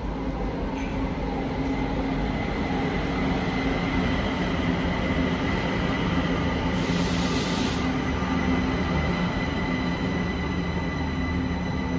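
Kaohsiung MRT Red Line metro train pulling into an underground station: steady running noise of wheels and motors with a thin high-pitched tone, and a brief hiss about seven seconds in.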